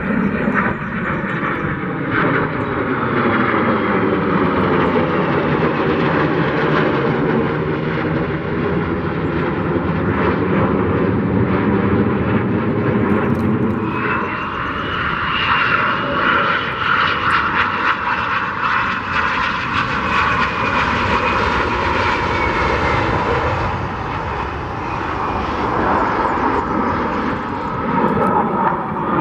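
Fighter jets flying over with a loud, steady jet roar that shifts in tone as they pass. About halfway through, a high whine joins in and slowly falls in pitch.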